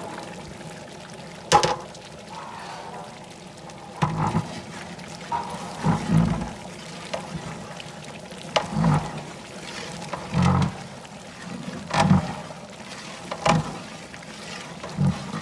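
Thick tomato qorma sauce being stirred with a flat metal spatula in a large cauldron, giving a wet slosh every second or two. A sharp knock comes about a second and a half in, and another near 12 seconds.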